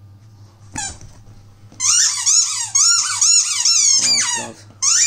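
A squeaky plush muffin dog toy being chewed by a puppy: one short squeak about a second in, then a fast run of loud rising-and-falling squeaks, about three a second, with a short break near the end.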